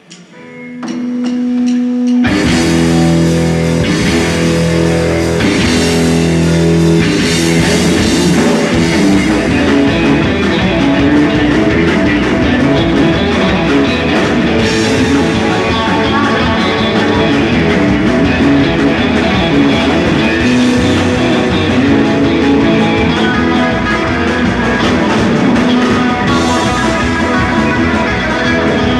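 Live boogie rock band playing: electric guitars, bass guitar and drum kit. It opens on a single held note, and the full band comes in about two seconds in and plays a steady, driving groove.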